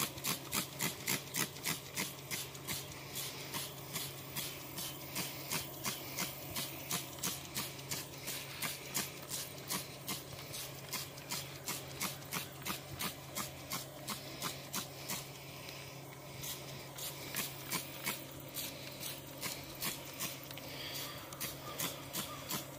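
Hand trigger spray bottle squeezed over and over, a short spritz of cleaner at each pull, about three or four a second, with a couple of brief pauses.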